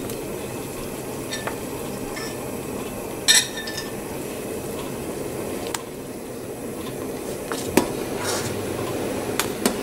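Soup boiling steadily in a stainless steel pot while a spoon stirs it, the spoon clinking against the pot several times, most sharply about three seconds in.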